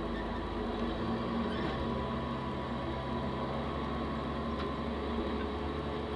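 Caterpillar 140H motor grader's diesel engine running close by with a steady low drone. Its note shifts slightly about a second in.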